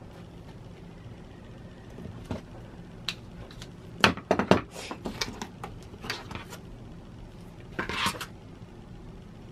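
Hard plastic clicks and clatter of rotary cutters being handled, set down and picked up on a cutting mat, loudest in a cluster of knocks about four seconds in, with a brief rustle near the end.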